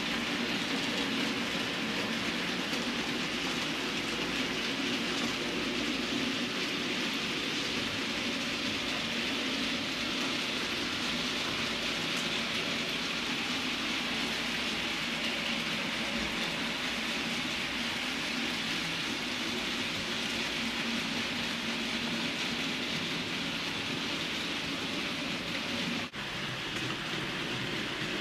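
Model railway diesel locomotive running along the track: a steady running noise of its motor and wheels that drops out for a moment near the end.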